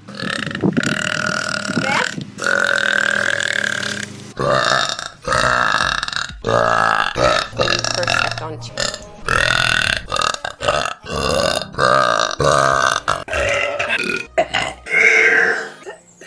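A woman belching loudly over and over: two long drawn-out burps, then a rapid string of many shorter ones.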